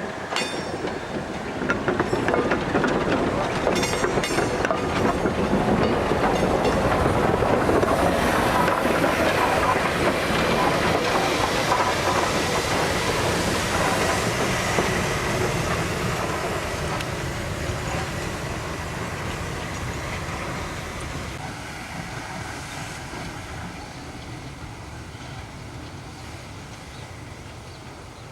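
A steam train passing, its wheels clacking over the rail joints. It builds up over the first few seconds, is loudest around the middle, then fades away.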